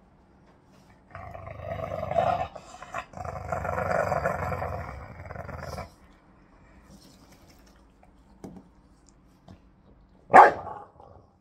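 English bulldogs growling during a tug-of-war over a chew toy: a long rough growl for about five seconds with a brief break, then one short, loud bark near the end.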